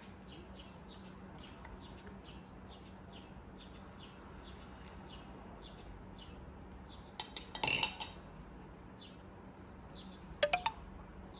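Shiba Inu licking at a small plastic yogurt cup, soft wet licks about two or three a second. A short clatter of tableware comes about seven seconds in, and three sharp clicks near the end.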